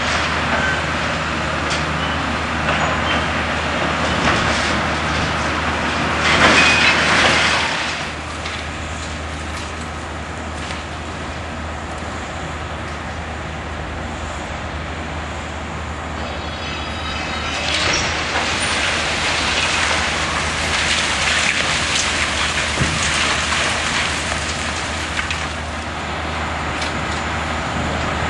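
Steady low engine rumble from heavy machinery, with a louder rushing surge about six to eight seconds in and a few scattered knocks in the second half.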